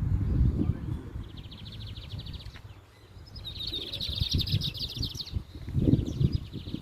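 Competition songbirds singing fast, high trills of quickly repeated notes in several bouts, one after another. Irregular low rumbling and knocks run underneath and are loudest near the end.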